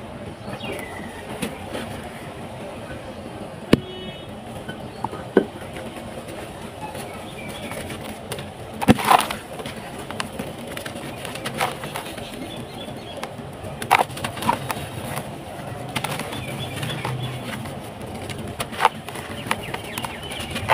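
Dry, dusty sand-cement and stony lumps being crumbled by hand, a steady gritty hiss of powder and grit pouring into a basin. Sharp cracks and clicks come several times as lumps break, the loudest about nine seconds in.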